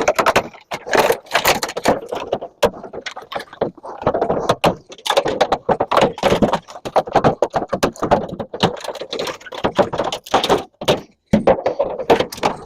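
Metal parts and wiring of a vintage GE microwave rattling and clanking as it is pulled apart by hand: rapid, irregular clicks and knocks.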